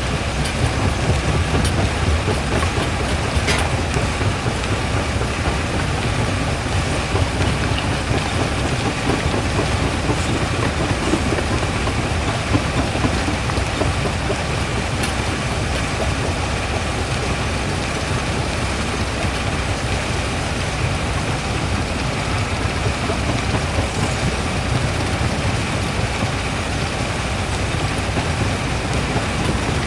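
Quarry primary jaw crusher running, with a steady low rumble and a dense, gravelly rattle of rock being broken.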